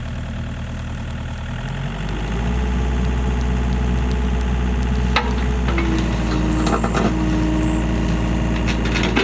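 Excavator engine running, rising in loudness about two seconds in as it comes up to working speed. A sharp knock comes a little after the middle, then a steady higher tone joins the engine, with a few clanks and scrapes as the machine digs.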